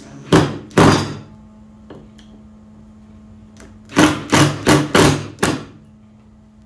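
Cordless drill driving a screw into a wooden board in short pulses of the trigger: two bursts about half a second apart, then five more in quick succession about four seconds in as the screw is snugged down.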